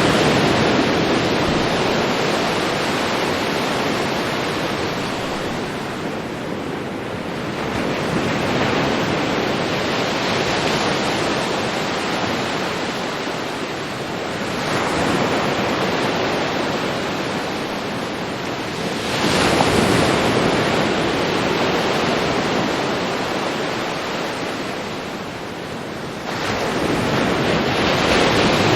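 Ocean surf washing onto a beach: a steady rush of water that swells and falls back, with a fresh wave breaking every five to seven seconds.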